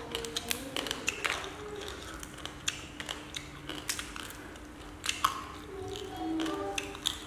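Small cooked crabs' shells cracked and picked apart by hand, in many irregular sharp cracks and clicks.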